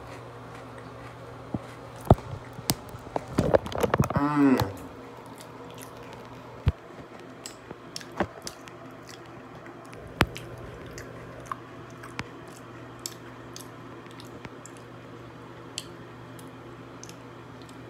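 Close-up chewing of Oreo cookies: wet mouth clicks and smacks scattered throughout, with a short hum of the voice falling in pitch about four seconds in. A steady low hum runs underneath.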